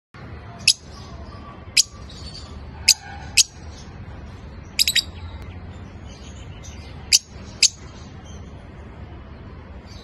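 Parblue masked pied lovebirds giving short, shrill chirps, one every second or so, with a quick double chirp about five seconds in, over a steady low hum.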